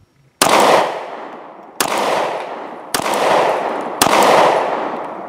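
Four shots from a Detonics Pocket 9, a straight-blowback 9mm pistol, fired about a second apart. Each shot is a sharp crack followed by a long fading echo.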